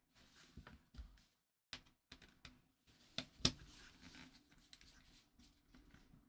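Faint clicks, taps and handling noise of wires being worked into the screw terminals of a small relay board with a screwdriver, with one sharper click about three and a half seconds in.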